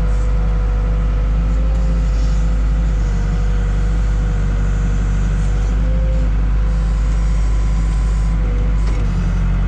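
Case 580K backhoe's four-cylinder diesel engine running steadily with the throttle up. A steady whine sits over the low engine drone.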